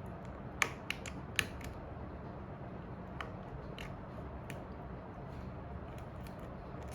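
Sharp clicks and taps of small repair tools working on an iPhone 7 Plus during a battery replacement: a quick cluster in the first second and a half, then a few single clicks, over a steady low hum.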